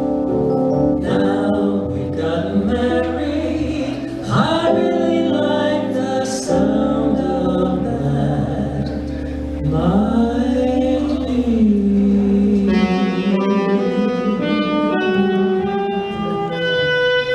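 An original song near its close: singing over instrumental backing, with long held notes and a couple of notes sliding in pitch.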